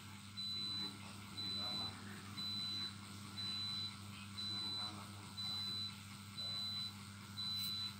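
Electronic beeping: a high, steady tone sounding about once a second, each beep about half a second long, over a low steady hum.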